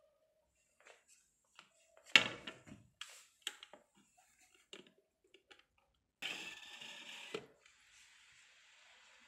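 Plastic clicks and knocks from the machine's hinged lid and swing arm being handled, the loudest a clunk about two seconds in. About six seconds in a hiss starts, lasts just over a second and cuts off, leaving a faint steady hiss.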